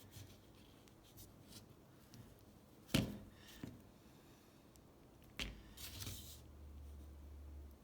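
Handling noises from a small metal ratchet and its parts as grease is worked into the ratchet body: a few light clicks, a sharp knock about three seconds in and another about five and a half seconds in, a brief rustle around six seconds, then a low hum near the end.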